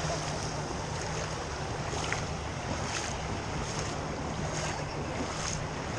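Small waves washing in over shallow water at the shoreline, with a steady low rumble of wind on the microphone and faint soft swishes about once a second.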